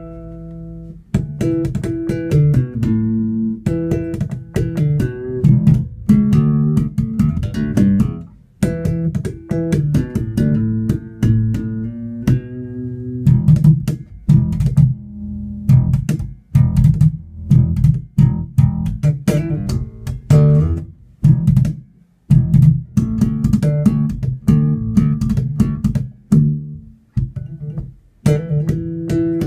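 Yamaha TRBX604FM four-string electric bass played fingerstyle through a Markbass Little Mark 4 head and Traveler 102P cabinet: a solo line of plucked notes in quick succession, with short breaks between phrases.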